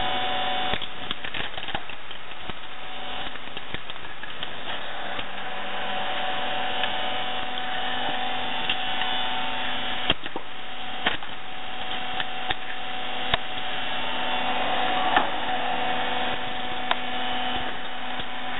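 Vertical hydraulic log splitter running with a steady hum from its motor and pump, with a few short sharp knocks and cracks from the logs being split and handled.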